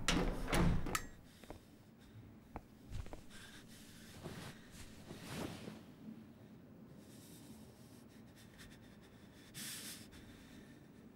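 Metal elevator doors clattering shut with a few sharp knocks in the first second. A quiet stretch with faint scattered clicks follows, then a short hiss of breath near the end.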